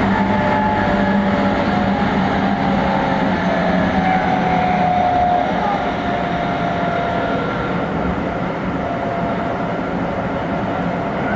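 Running sound inside a Meitetsu 3500 series electric train: the high-pitched whine of its Toyo Denki GTO-VVVF inverter and traction motors falling slowly in pitch as the train slows, over wheel and rail noise. The sound drops a little in loudness about halfway through.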